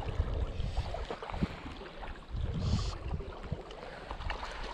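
Wind rumbling on the microphone over small waves lapping on a gravel lakeshore. A short rush of hiss comes through a little past halfway.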